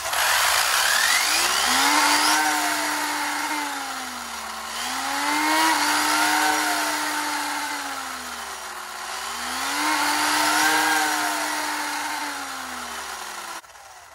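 ARRMA Infraction's electric motor and four-wheel-drive drivetrain spinning the wheels freely on a stand, throttled up and eased off three times in rising and falling whines over a steady rush of gear noise, then cutting off suddenly near the end. This is a test run of the centre differential freshly filled with 300,000-weight silicone oil, splitting the power between front and rear.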